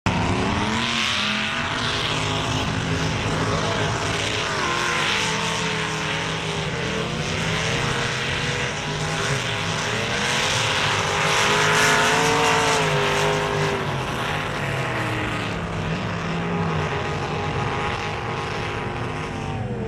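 Mud-racing truck engines revving hard at high throttle, their pitch repeatedly climbing and dropping as they power through the mud track. More than one engine is heard at once, and the loudest stretch comes about twelve seconds in.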